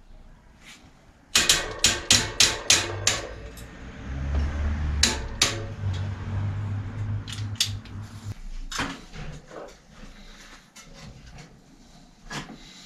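Metal tool work on a bicycle wheel: a quick run of about seven sharp knocks, roughly four a second, then scattered clicks and clatter of metal parts. A low hum runs under it for a few seconds and stops suddenly about eight seconds in.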